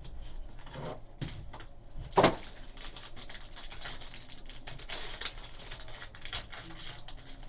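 Foil trading-card pack wrapper being torn open and crinkled by hand, a run of rustles and small crackles with one louder sharp sound about two seconds in.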